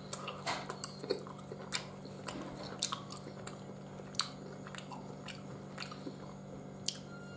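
A person chewing a soft, sticky piece of Turkish delight (lokum) with the mouth closed: irregular wet mouth clicks and smacks, a few each second.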